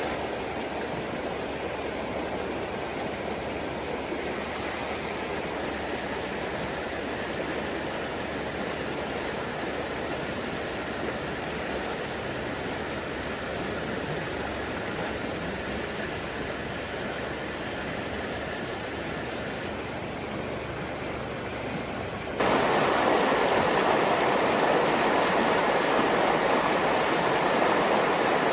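Steady rushing of running water, an even noise with no distinct events, which jumps abruptly louder about 22 seconds in.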